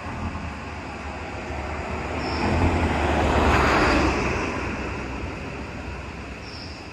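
A vehicle driving past on the road, its noise growing louder to a peak around the middle and then fading away.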